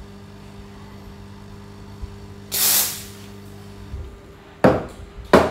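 Espresso machine steam wand hissing in three short blasts: one about halfway through, then two sharp, louder ones near the end, as the wand is purged after frothing milk. A low steady hum stops about four seconds in.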